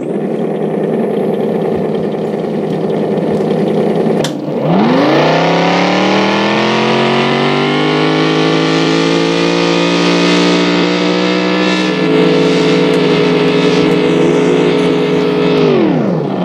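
Recorded Shelby Mustang V8 engine sound played through a speaker by a SoundRacer EVSM-2M sound module on an electric scooter, its pitch driven by the scooter's speed signal. It idles steadily, then about four seconds in rises in pitch as the scooter pulls away, holds high while it rides, and falls near the end as it slows.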